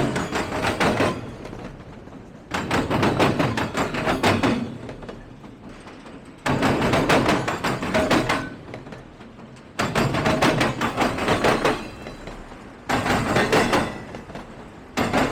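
Passing freight train: each car's wheels clatter over the track in a rapid run of knocks and bangs, one burst every three to four seconds as the cars roll by slowly.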